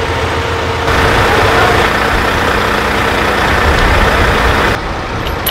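Heavy wrecker tow trucks' diesel engines running steadily at idle, a low rumble under a broad noise. The sound changes abruptly about a second in and again near the end.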